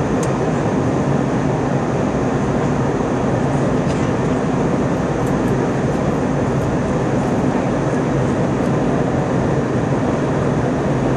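Steady cabin roar of an Airbus A321-231 in flight, heard from a passenger seat: engine and airflow noise that holds even throughout, with a faint low hum under it.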